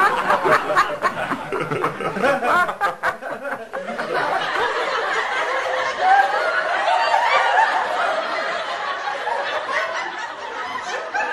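Several people laughing and chattering at once, with voices overlapping throughout.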